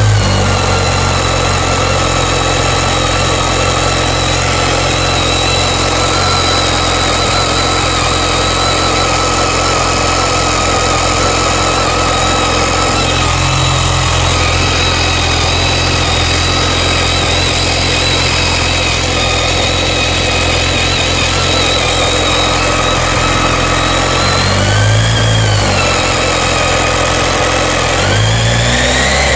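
BMW K1300S inline-four motorcycle engine idling with a steady high-pitched screechy whine over it; the pitch rises and falls briefly twice near the end as the engine is revved a little. The owner is unsure whether the screech is normal.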